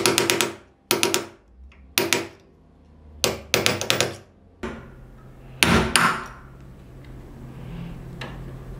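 A hammer striking a steel punch set against the rusted keyhole bushing of an old lock, metal on metal. The strikes come in about five short bursts of quick taps over the first six seconds.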